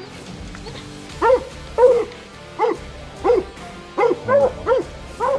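Blood-trailing bay dog barking, about eight short barks at uneven intervals: baying at the wounded buck it has tracked down.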